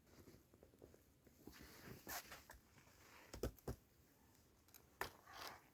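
Near silence broken by a few faint, short knocks and a soft rustle: four knocks spread through the middle and latter part, with a brief rustle right after the last one.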